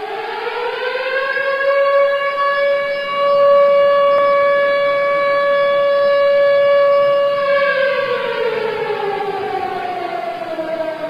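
Civil defense siren sounding the 10 November remembrance signal for Atatürk. Its tone rises over the first two seconds, holds steady for about five seconds, then slowly falls in pitch near the end.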